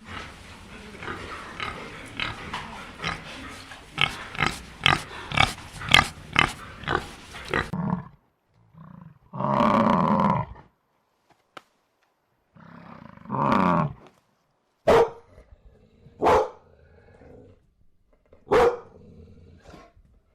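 Animal calls: a run of short grunts at about two a second, then two longer drawn-out calls, then three sharp short calls spaced a second or two apart.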